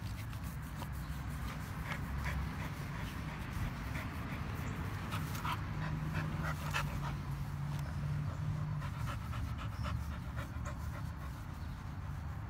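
A dog panting steadily, with scattered faint clicks.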